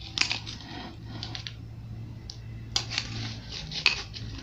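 Metal spoon scraping and clinking through powdery refrozen ice in a glass bowl, in several bursts of sharp clicks as the ice is stirred and scooped.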